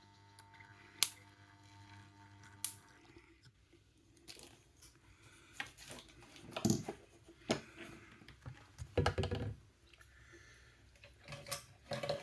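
Small tools and metal kit parts handled on a workbench: irregular sharp clicks, taps and short scrapes. A steady low hum stops about three seconds in.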